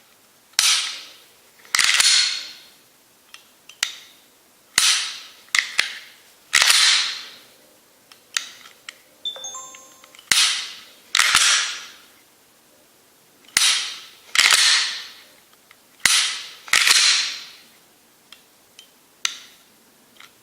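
Glock 19 Gen5 pistol with a Ghost Edge aftermarket trigger connector being dry-fired repeatedly: a sharp click as the trigger breaks and the striker falls, followed each time by a short metallic sliding noise as the slide is worked to reset the trigger.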